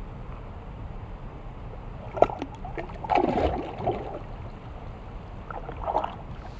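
Water splashing and gurgling at a river's edge, in short bouts about two seconds in, between three and four seconds, and again near six seconds.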